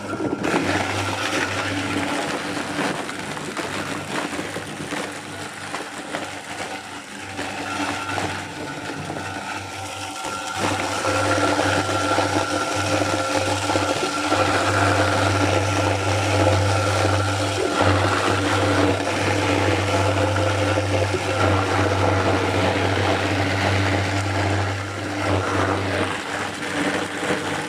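Apple mill grinding apples into pulp for cider: a steady machine hum with a grinding, crunching noise, louder from about ten seconds in.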